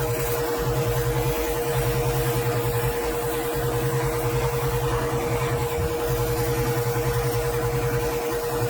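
Pressure washer running steadily: a constant motor hum with a pulsing low throb under the hiss of the water spray.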